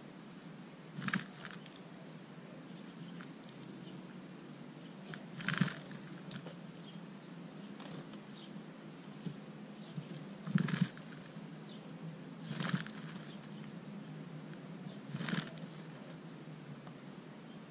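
House sparrow dust-bathing: five short flurries of wing-fluttering in dry soil and mulch, a few seconds apart.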